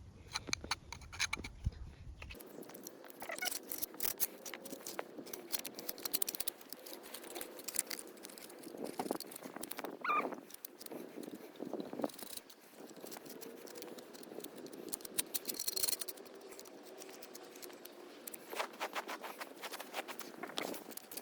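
Caked grease and dirt being scraped by hand off a Ford Thames ET6 truck gearbox casing: a dense, irregular run of small scrapes and clicks.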